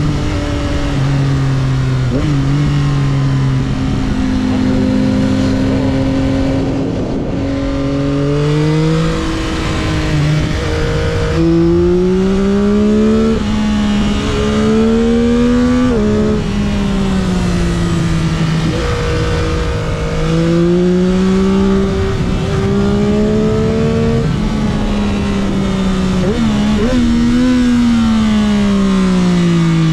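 2022 Yamaha XSR900's three-cylinder engine through its stock exhaust, pulling hard on a twisty road: its pitch climbs under throttle and drops suddenly at each gear change, several times, over steady wind rush.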